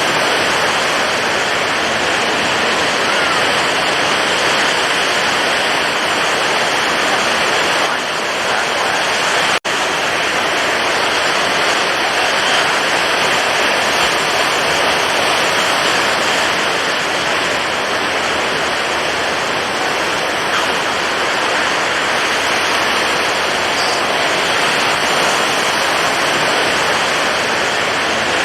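Stormy ocean surf: a steady, dense rushing roar of breaking waves with no separate wave crashes standing out. The sound cuts out for an instant about ten seconds in.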